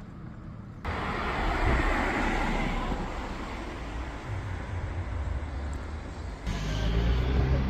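Road traffic on a town street: a car passing, its tyre and engine noise rising sharply about a second in and fading over the next two seconds. Near the end a louder low traffic rumble starts abruptly.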